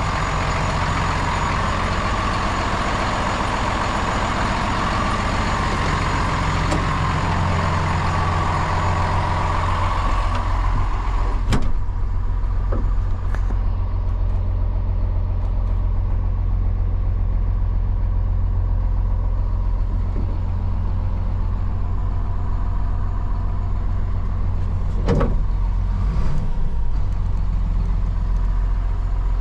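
A 2014 Hino 268 box truck's inline-six diesel engine idling steadily. About twelve seconds in, a door shuts with a sharp knock, and the idle then sounds duller, heard from inside the cab. Another short knock comes near the end.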